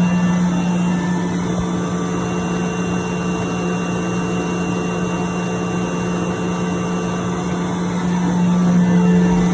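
10 HP Sullivan Palatek rotary screw air compressor running with a steady hum. It gets a little louder near the end.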